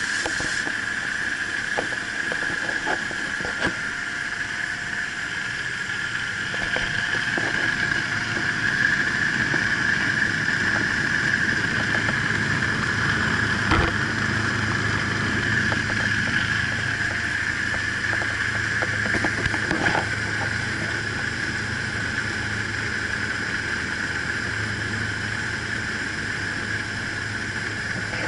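Small air taxi's propeller engine droning steadily, heard from inside the cabin, with a few brief knocks.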